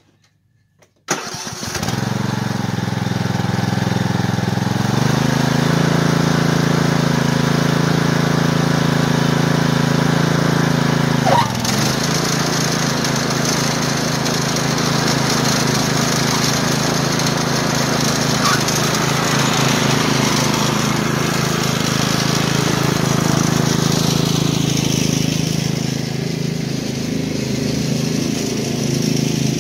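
Troy-Bilt TB30R riding mower's Briggs & Stratton engine cranks and starts about a second in, then runs steadily after the belt replacement. It speeds up a few seconds later, dips briefly with a click about eleven seconds in, and grows more distant near the end as the mower drives away.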